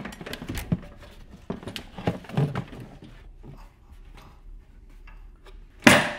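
Irregular knocks and clunks of a plastic fuel tank being pushed up into a lawn mower's steel frame from underneath, with one louder thump near the end.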